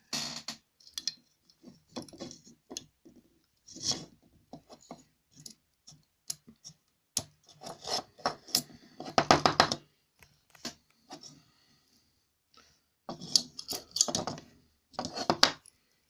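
Steel screwdriver shaft scraping and clicking as it is rubbed back and forth through the slot of a screwdriver magnetiser, in uneven strokes with short pauses. Rubbing the shaft through the slot is what magnetises the screwdriver.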